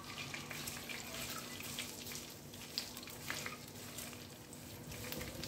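Peanuts, almonds, coconut slices, curry leaves and roasted chana dal sizzling in a little hot oil in a steel kadhai, with scattered small crackles and pops as they are stirred with a spatula.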